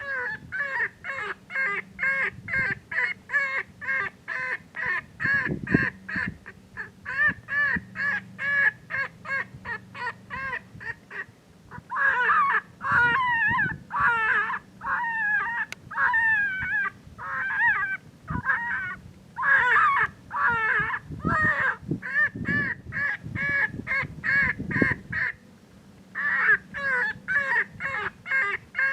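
A predator call plays a rapid, repeated squalling distress cry, about three calls a second. In the middle stretch it switches to longer warbling cries, then goes back to the quick calls after a short pause.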